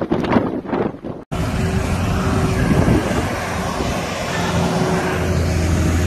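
Gusty snowstorm wind buffeting the microphone, then an abrupt cut about a second in to a steady wind hiss with the low, steady hum of vehicle engines idling.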